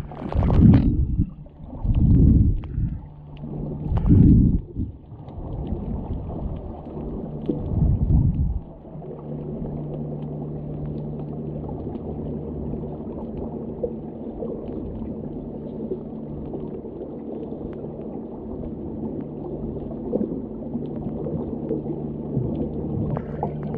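Muffled underwater sound picked up through the camera housing: four loud, low rushing surges of moving water in the first eight seconds, then a steady low hum with a constant low tone.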